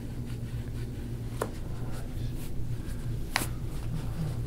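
Hands rubbing and pressing on a thigh during deep-tissue massage: soft rubbing and scratching on skin and fabric over a steady low hum, with two sharp clicks, about a second and a half in and again about two seconds later.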